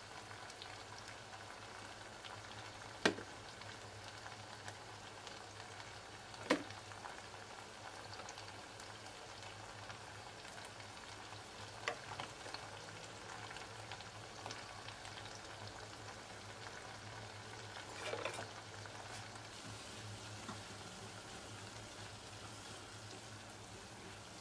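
Shrimp curry sauce sizzling steadily in a nonstick pan, with a few sharp taps, four of them spread through the stretch.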